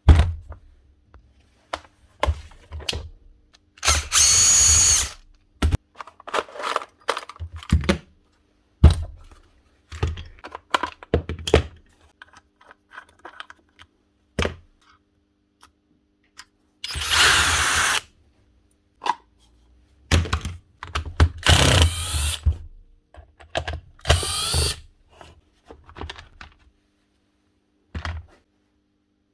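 A battery power tool's motor runs in four bursts of about a second each, with a high whine. Between the bursts come many sharp clicks and knocks of the tool being handled.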